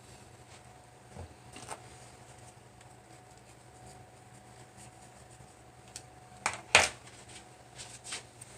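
Small objects being handled and set down: scattered light clicks, then a few sharp clacks close together about two-thirds of the way through, over a faint steady hum.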